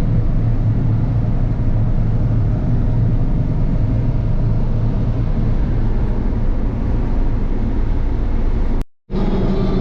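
Combine harvester running steadily while combining corn, a loud, even engine and machinery drone with a deep low rumble. Near the end the sound cuts out for a moment and comes back as a steadier engine hum with a clear pitch.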